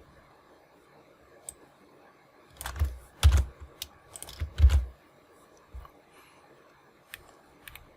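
Keys tapped on a computer keyboard in short, scattered bursts, the loudest clusters about three and four and a half seconds in.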